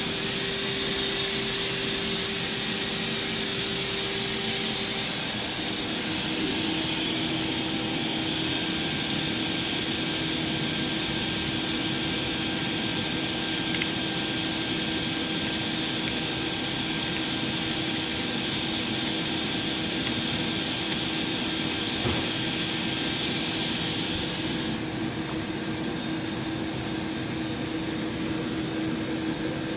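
Doosan DNM 500 II vertical machining center running with a steady mechanical hum and hiss and a few steady tones. One tone shifts slightly in pitch about six seconds in, and the high hiss eases off near the end.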